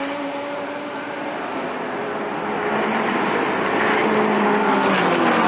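A pack of GT3 race cars, among them Mercedes-AMG GT3s and a BMW M6 GT3, running under power with several engine notes heard at once. One note falls away early on; from about halfway the sound grows steadily louder as the cars draw nearer.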